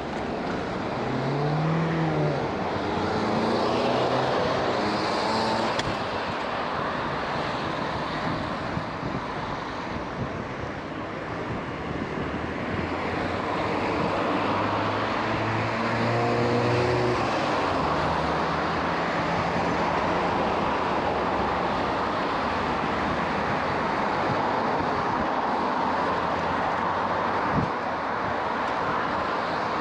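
Road traffic heard from a moving bicycle: a steady hiss of road and air noise with motor vehicles passing close. Twice an engine climbs in pitch as a vehicle accelerates, about two seconds in and again around the middle.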